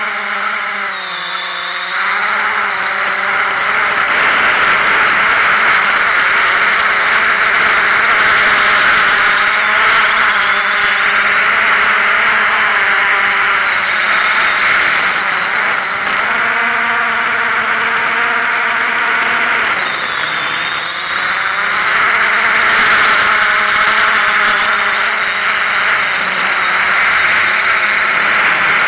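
Small drone's electric motors and propellers whirring, heard up close from the aircraft itself: a steady rushing hiss under several pitched whines. The whines dip and swing in pitch as the throttle changes, about a second in and again around sixteen and twenty seconds.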